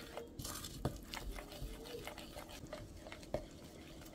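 A spoon stirring powdered sugar into runny mashed potato in a mixing bowl. Faint wet scraping, with a few light clicks of the spoon against the bowl.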